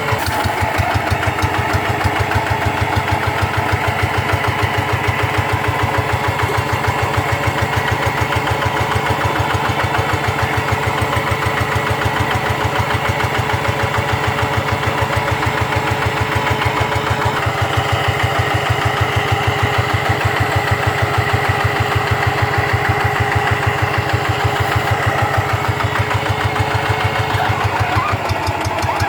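Two-wheel rice-field hand tractor's diesel engine running steadily, with an even, rapid beat of firing pulses.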